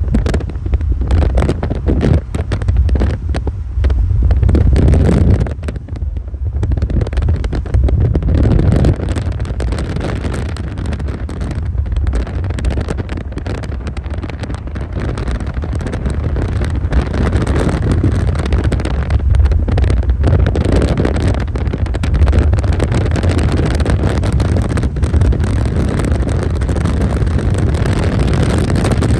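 A car driving: low engine and road rumble with wind on the microphone, swelling and easing several times.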